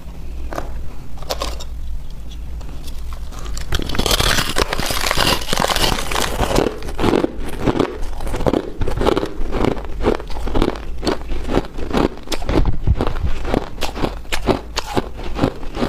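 A person biting and chewing chunks of white ice: a few sparse crackles at first, then from about four seconds in a dense crunch, followed by a steady run of crisp crunches, a few a second, as the ice is chewed.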